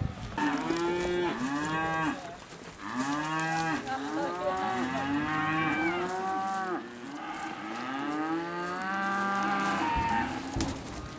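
A herd of cattle mooing, several animals calling over one another in a run of long, arching moos.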